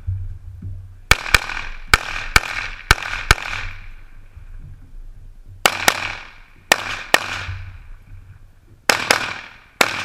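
Pistol shots fired in quick pairs and short strings, about a dozen cracks in all, each with a brief echo, in rapid practical-shooting fire.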